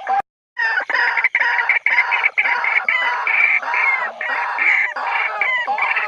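White-breasted waterhen territorial calls: a dense, rapid, overlapping run of calls with no pause except a brief cut-out just after the start.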